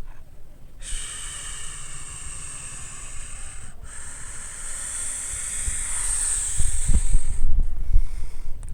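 Toy RC helicopter's small electric rotor motors spinning, a steady high-pitched whine that starts about a second in, dips out briefly, then swells louder, with low thumps near the end.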